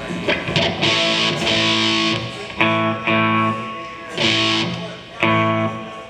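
Electric guitar played through a combo amp for a sound check: a series of chords, each strummed and left to ring for a moment before the next.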